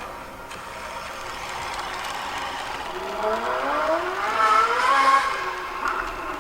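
Sports-car engine sound revving up: a steady hum, then from about three seconds in the pitch climbs, peaks about two seconds later and falls away.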